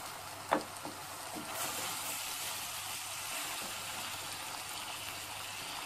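Sliced button mushrooms sizzling in hot oil in a pot while being stirred with a wooden spatula, at the early stage when the mushrooms begin to give off their water. A single knock about half a second in, and the sizzle grows a little louder and brighter about a second and a half in.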